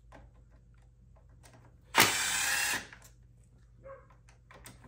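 A Milwaukee M18 cordless driver spins once for under a second, about two seconds in, backing a small screw out of a handlebar cover on a quad.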